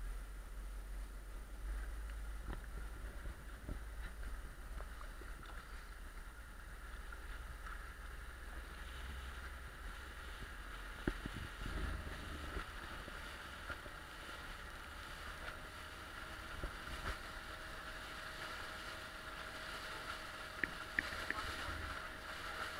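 Small motorboat under way: its engine runs steadily under the rush of water along the hull and wind buffeting the microphone, with a few short knocks from the hull.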